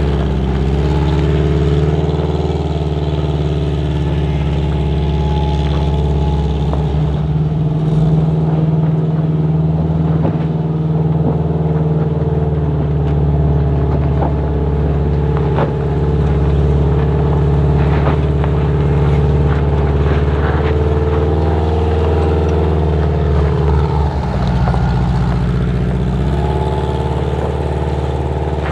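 Volkswagen Vanagon Westfalia van's engine running at low, fairly steady revs as it crawls up a rocky dirt trail, with a few sharp clicks of stones under the tyres.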